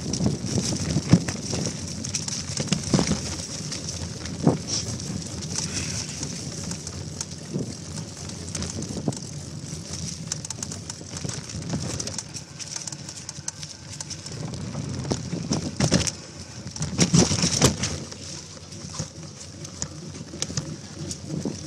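Bicycle ridden over a rough, leaf-covered dirt trail: tyres crunching through dry leaves, with the frame and chain rattling and knocking over bumps, loudest around 16 to 18 seconds in.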